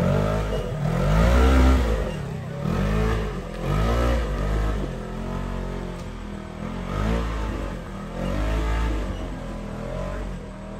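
Off-road side-by-side's engine revving up and down in repeated bursts as it crawls up rock ledges, the strongest rev about a second and a half in.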